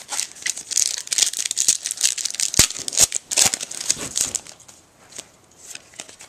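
A foil trading-card pack wrapper crinkling and tearing open in the hands, a dense crackle for about the first four seconds. Fainter ticks of the cards being slid and shuffled follow.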